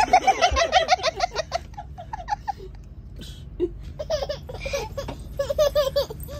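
Hearty laughter in two bouts: the first over roughly the first two and a half seconds, the second starting about four and a half seconds in, over a steady low rumble.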